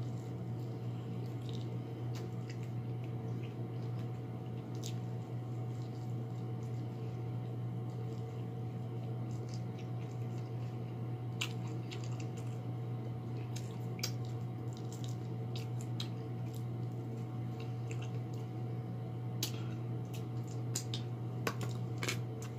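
Close-up eating sounds: scattered wet smacks and clicks of chewing sauced chicken wings, over a steady low hum.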